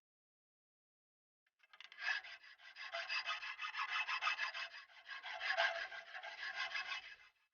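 Quick back-and-forth rasping strokes of hand abrading on a workpiece, many per second, starting about two seconds in and stopping just before the end.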